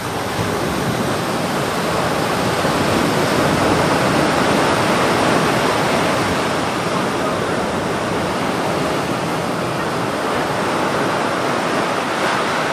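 Small sea waves breaking and washing up a sandy beach: a steady rush of surf and foam that swells over the first few seconds.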